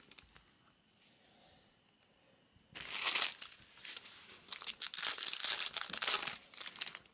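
2022 Bowman Chrome trading card pack wrappers crinkling and tearing as packs are opened by hand. A quiet start, then dense crackling begins about three seconds in and runs on in bursts.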